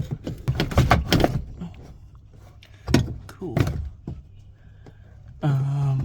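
Clunks and rattles of a car's gear-shift linkage being pulled out from under the car, a quick run of knocks in the first second and a half, then a few lighter clicks.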